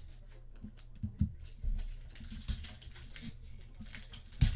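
Sports trading cards and pack wrappers being handled: soft crinkling and scattered light taps, with a louder knock near the end.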